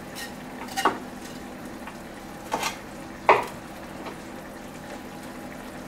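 A kitchen knife knocking on a wooden chopping board while cutting chicken meat from the bones: three sharp knocks, about a second in, then twice more a little before the halfway point, the last the loudest, over a steady low hiss.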